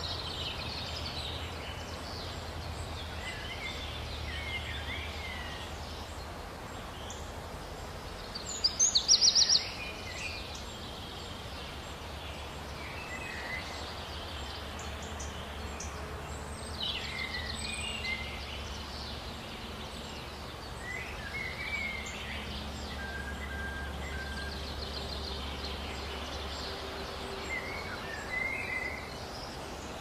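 Birds chirping and calling here and there over a steady low hum, with a loud burst of rapid clicking or rattling about nine seconds in.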